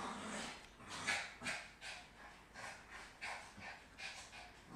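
Small dog panting hard, about two breaths a second, winded from running.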